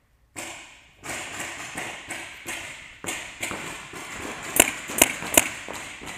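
Three sharp paintball marker shots in quick succession, about 0.4 s apart, the loudest sounds here, among a run of fainter pops and thuds.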